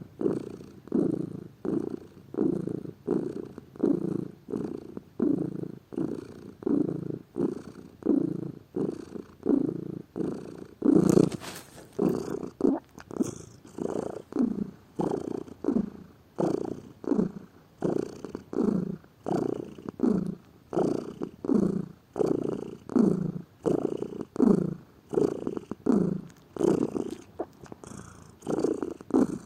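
Domestic cat purring steadily, its purr swelling and fading in a regular rhythm about twice a second. There is one brief louder noise about eleven seconds in.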